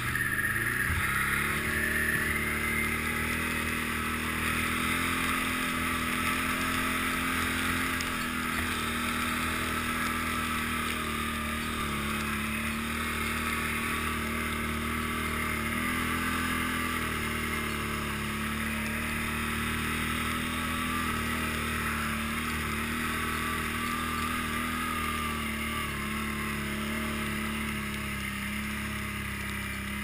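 2009 Can-Am Outlander 800 Max ATV's V-twin engine running while riding, rising in pitch over the first couple of seconds as it picks up speed. It then holds a fairly steady pitch with small throttle dips and rises.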